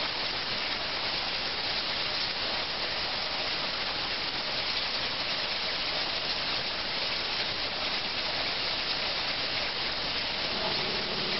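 Plasma cutter torch blowing a steady rush of compressed air onto the water table, spraying and splashing the water under the nozzle, with no arc struck. A low steady hum comes in near the end.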